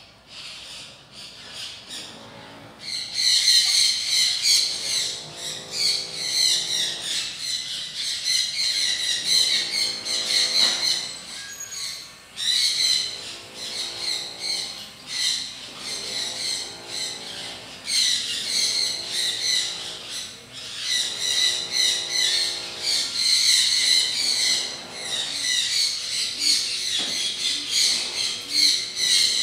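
Birds chirping and squawking in a dense, continuous chorus that gets suddenly louder about three seconds in.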